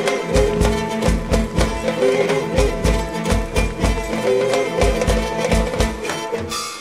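Live folk music: bowed string instruments play a melody over a steady low drone, with a bass drum beating about twice a second.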